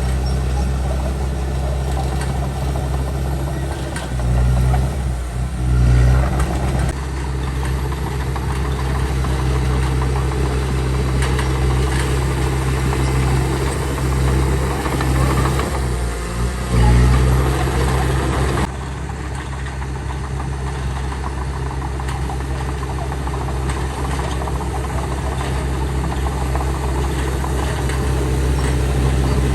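Heavy earthmoving machine's diesel engine running steadily and working under load, swelling louder twice. The sound changes abruptly about two-thirds of the way in.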